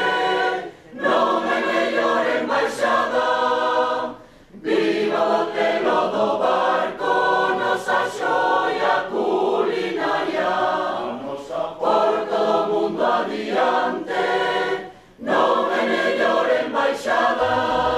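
Mixed choir of men's and women's voices singing together in long sustained phrases, with brief pauses for breath about a second in, around four seconds in and near fifteen seconds.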